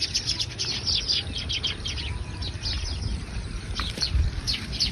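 Small birds chirping rapidly and continuously, many short falling chirps overlapping, over a low rumble.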